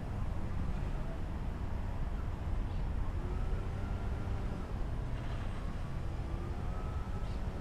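RC rock crawler driving over the ground, heard through a microphone mounted on the car: a steady low rumble with a faint electric-motor whine that shifts in pitch from the middle onward.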